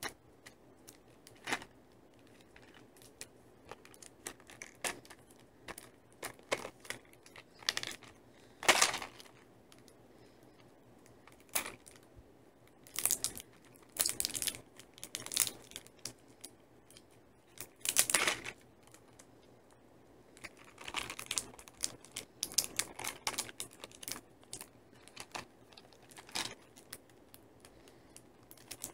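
Fingers picking and pulling at the plastic film wrapped around a small cardboard candy box: irregular crinkling and crackling of the wrapper in short bursts, with several louder bursts spread through, as the hard-to-open wrap resists tearing.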